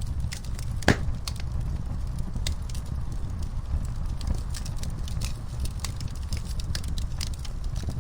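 Wood fire crackling in a fireplace: irregular sharp snaps and pops over a steady low rumble of the flames, with one louder pop about a second in.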